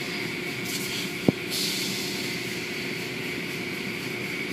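Automatic car wash machinery running: a steady wash of water spray and mechanical noise with a thin, steady high whine, and one sharp knock about a second in.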